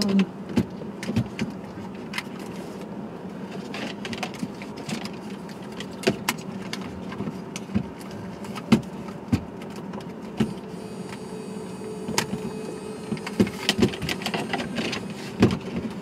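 Scattered plastic clicks, taps and knocks at irregular intervals from handling the BMW E46's factory radio head unit as its connector clips are snapped back on and the unit is fitted back into the dash, over a steady low hum.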